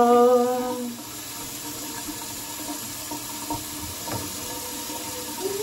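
Water running steadily from a sink tap while a face is rinsed, an even rush of water noise.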